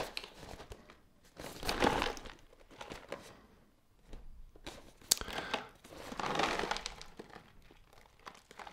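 Cereal packaging being handled: irregular crinkling and rustling in several short bursts, the loudest near the start and about two seconds in.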